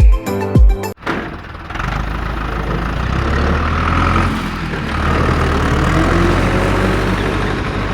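A motor vehicle's engine running steadily, with a faint tone that slowly rises in pitch as the engine picks up. Music stops sharply about a second in, just before the engine comes in.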